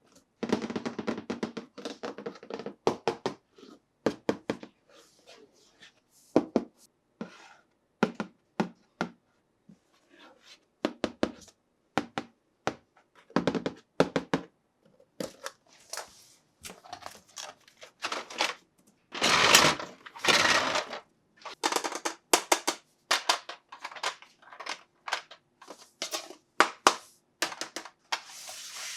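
Plastic toys and their packaging being handled: a steady scatter of sharp clicks, taps and knocks, with a louder stretch of crinkling rustle about two-thirds of the way in.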